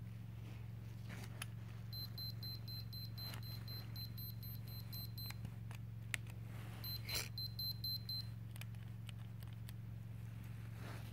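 Minolta X-700 35mm SLR giving fast high electronic beeps, about five a second, in a run of some three seconds and then a shorter run, with several sharp mechanical clicks from the camera. This is the faulty shutter being shown.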